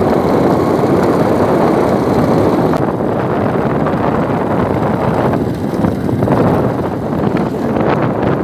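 Loud wind buffeting the microphone while moving along a road at speed, with the vehicle's running noise underneath.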